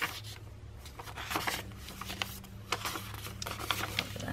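Paper pages of a thick handmade hardcover junk journal, many of them tea-dyed, being turned and handled: soft rustles and light paper flicks at irregular moments, over a faint steady low hum.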